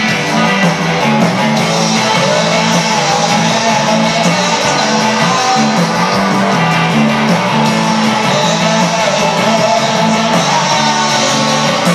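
Live rock band playing loud and without a break: electric guitar, bass guitar and drum kit.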